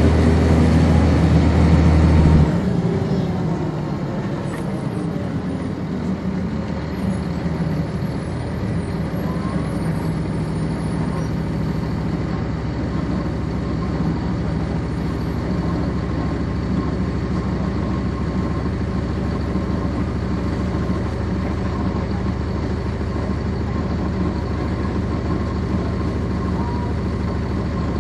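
Cummins ISC diesel engine of a 1999 NovaBus RTS, heard from inside the bus: it pulls hard for about two and a half seconds, then drops off with a falling whine as the bus eases off, and settles into a steady low running for the rest.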